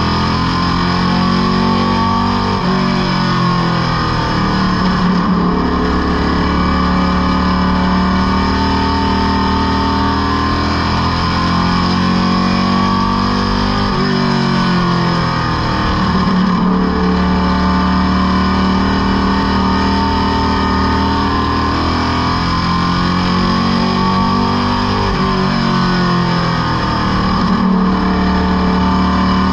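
Superstock race car's engine at racing speed, heard from inside the cockpit. Its pitch falls and climbs again three times as the car slows for the turns and accelerates back onto the straights.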